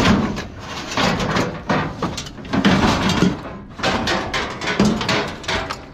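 Scrap metal clanking and banging as pieces are thrown off a load onto a pile, a rapid run of impacts in several clusters.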